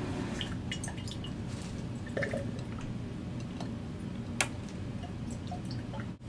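Liquid dripping and trickling from a small container into a glass of water, in scattered little plinks, with one sharper tick about four seconds in, over a low steady room hum.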